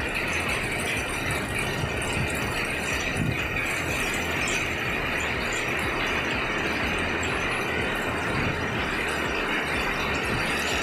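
Heavy tropical downpour: a steady, dense rain hiss and patter that does not let up.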